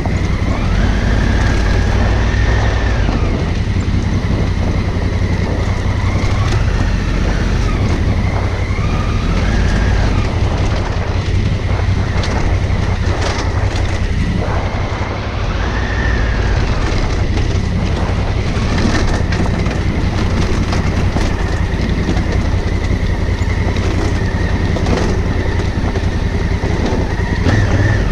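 Honda Africa Twin CRF1000L's parallel-twin engine running on the move, its note rising and falling every few seconds over a steady rushing noise.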